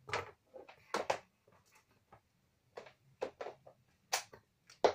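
About seven short knocks and taps, irregularly spaced, of objects being handled and set down on a work table.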